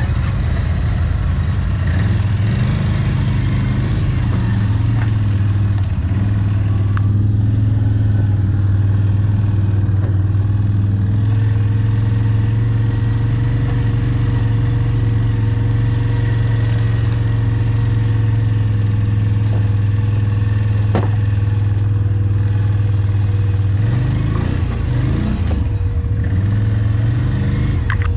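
Quad (ATV) engine running at a steady speed, then rising and falling in pitch a few times near the end as the throttle changes.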